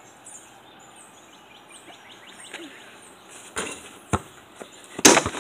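High-pitched chirping repeated about twice a second, then a few sharp knocks and thumps in the last two seconds, the loudest near the end.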